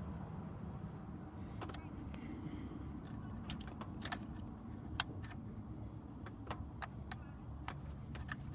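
Scattered light clicks and taps, about a dozen spread irregularly, from hands working a car's idle air control valve wiring connector into place. A steady low rumble runs underneath.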